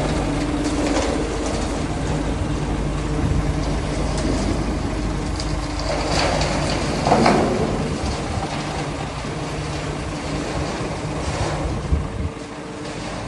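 Scania P410 concrete mixer truck's 13-litre inline-six diesel engine idling steadily, heard up close. A brief louder rushing noise swells and fades about seven seconds in.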